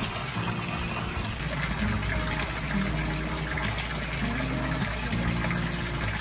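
Steady rush of flowing water, an even hiss that holds at one level throughout.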